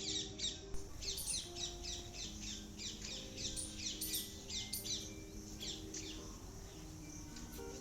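A flock of small birds chirping rapidly in quick, high, down-sweeping notes, over soft background music with held low notes. The chirping thins out about six seconds in.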